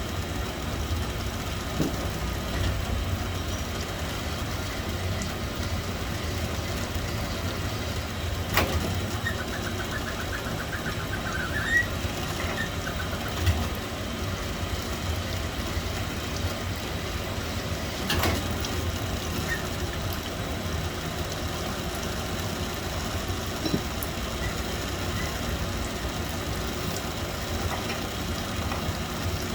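Metal lathe running with a steady low hum while taking a light finishing pass on a steel shaft. A couple of sharp clicks and a brief faint rising squeal come through over it.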